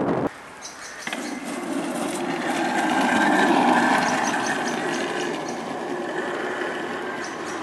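Homemade go-kart driving past on asphalt: a mechanical whirr from its motor and wheels swells to its loudest about three seconds in, then slowly fades, with light ticking on top.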